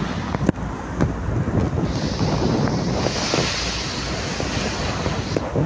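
Rough sea waves rushing and splashing against a ship's hull, with strong wind buffeting the microphone. The hiss of water grows brighter from about two seconds in, and a short knock sounds near the start.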